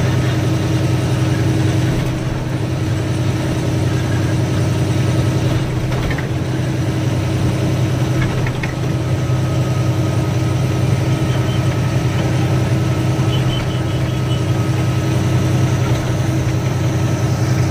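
Ashok Leyland ten-tyre goods truck's diesel engine running steadily on the road, a constant low hum with a faint high whine over it.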